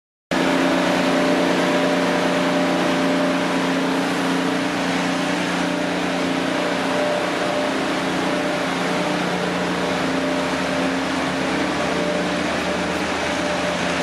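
Taiwan Railways Chu Kuang Express train pulling out slowly behind an R100 diesel locomotive: a steady, even-pitched diesel engine drone over the rolling noise of wheels on rail as the carriages pass close by.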